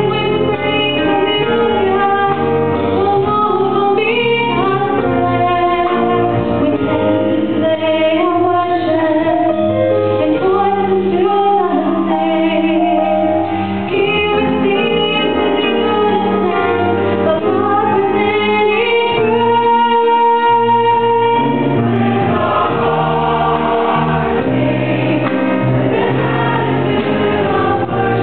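Church choir singing a gospel song in harmony. About two-thirds of the way in the lower parts drop away briefly under one held high note before the full choir comes back.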